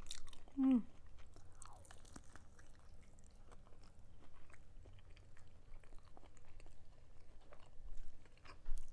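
Close-up chewing and crunching of a fried chicken drumstick coated in crunchy coloured sugar, with many small crunches and wet mouth clicks. A short falling hum comes about a second in.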